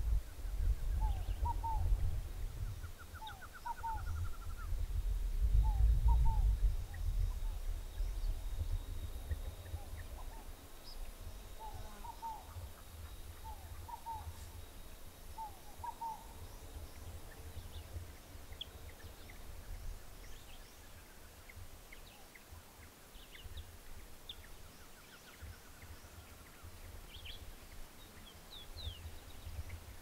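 Wild birds calling in dry scrubland. A repeated pair of short falling notes comes every second or two through the first half, a quick trill comes twice, and thin high chirps follow later on, over a low rumble that is loudest in the first several seconds.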